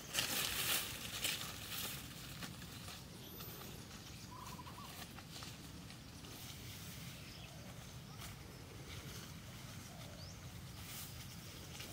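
Bare feet stepping through dry leaves and grass, rustling loudly for about the first two seconds, then a steady faint outdoor background with a few brief, faint bird calls.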